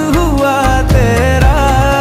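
Background music: a Hindi film-style song with a steady beat and bass line, its melody bending and gliding above.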